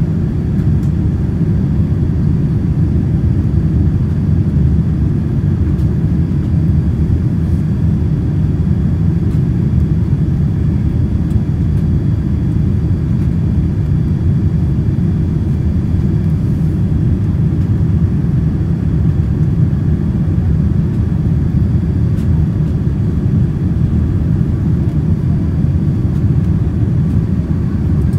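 Cabin noise of a Boeing 787-9 Dreamliner on approach: a steady low rumble of engines and airflow heard from a window seat, with a faint steady high whine over it.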